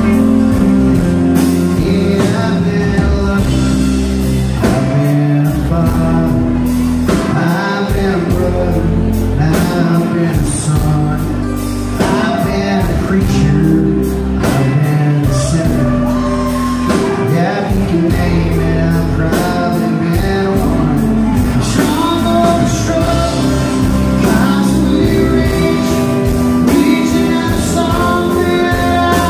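A live country-rock band playing, with acoustic and electric guitars, bass guitar and drums, and a male lead singer.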